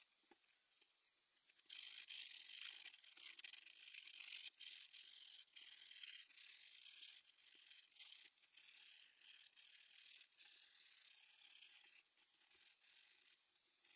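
Faint scratchy back-and-forth strokes of sandpaper rubbed by hand along the edge of a spalted maple slab, starting about two seconds in and stopping near the end.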